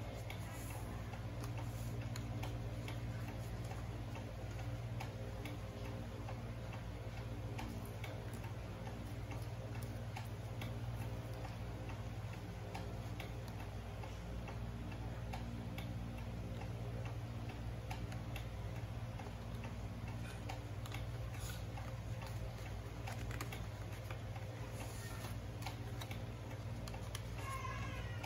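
Sheet of origami paper being folded and pressed flat by hand, giving soft rustles and many small clicks, over a steady low hum.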